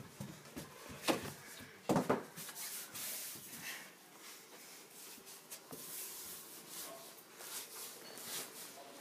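Rubbing and scuffing noise, with two sharp thumps about one and two seconds in.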